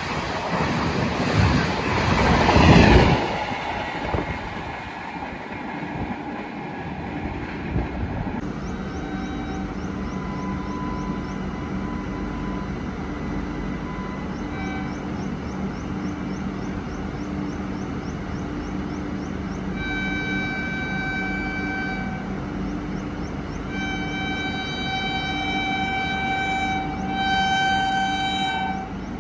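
Passenger coaches rushing past at speed: a loud rush of wheels and air that peaks about three seconds in and fades. Later, over a steady low hum, a train horn gives a few short faint toots and then three long blasts of a chord near the end.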